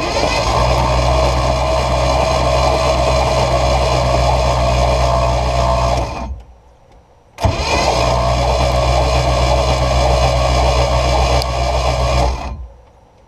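Starter motor cranking over the boat's small-block Chevy 350 V8 inboard in two bursts of about six seconds each, with a short pause between, the engine turning freely but not firing.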